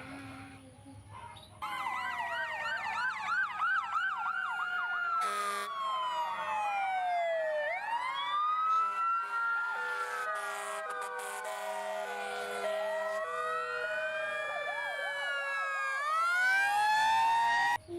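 Several electronic sirens sounding together, starting about two seconds in. They begin with a fast yelp that sweeps quickly up and down, then change to slower wails that rise and fall, and they stop abruptly near the end.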